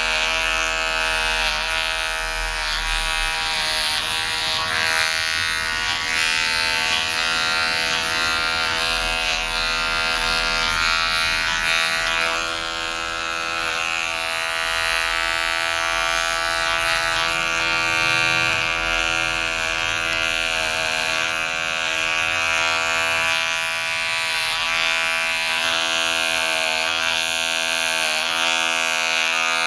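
Electric hair clippers with a guard attachment buzzing steadily as they cut very short hair at the back and side of the head, the pitch wavering slightly as the blades move through the hair.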